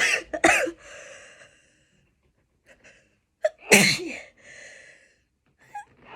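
A woman sneezing twice, once right at the start and again about three and a half seconds in, each sneeze followed by a short breathy exhale.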